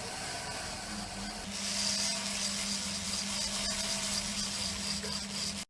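A workshop machine running with a steady hum, joined about a second and a half in by a louder high hiss that lasts until it stops abruptly near the end.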